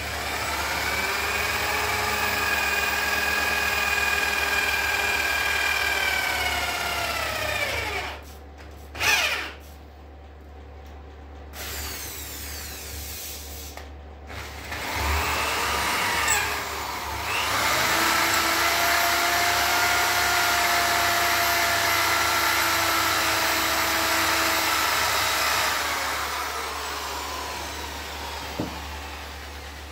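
A drill-type electric power tool run twice. It runs steadily for about seven seconds, then winds down with falling pitch and stops. After a sharp knock in the pause, it runs again for about eight seconds and winds down.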